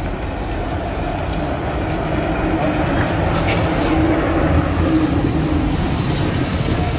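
Articulated city bus driving in to the stop and pulling up close by, its engine and tyre noise growing steadily louder.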